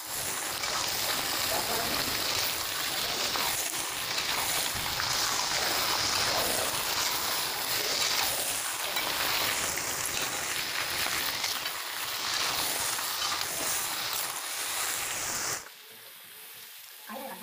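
Raw chicken pieces sizzling loudly as they fry in hot mustard oil in a steel kadai while being stirred. The sizzle stops abruptly near the end.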